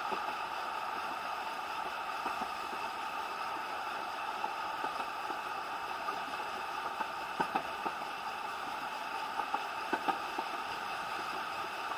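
Steady running noise of a narrow-gauge steam railway carriage heard from inside, a continuous rush with light irregular clicks.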